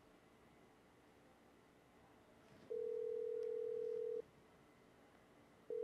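Mobile phone ringback tone, the sound of a call ringing while it waits to be answered: one steady single-pitched tone for about a second and a half, starting about three seconds in, then starting again at the very end.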